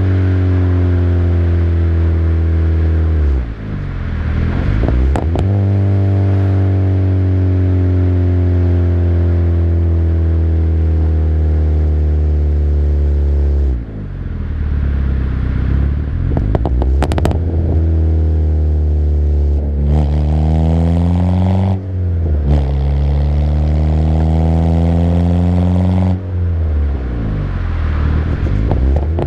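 Peugeot 206 four-cylinder engine heard loud at its large exhaust tip while driving, the note rising and falling with the revs. It briefly drops away about four times, as at gear changes, and a few sharp crackles come from the exhaust.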